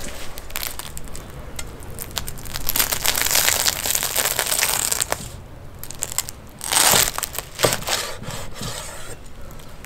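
Steel cleaver cutting through a grilled, toasted lavash shawarma roll on a wooden board: the crisp flatbread crunches and crackles in one long stretch, then a shorter one.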